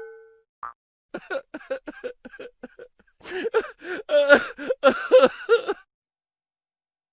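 A ringing chime fades out at the start. About a second in, a high-pitched voice starts babbling in short, quick syllables without clear words, for about four and a half seconds.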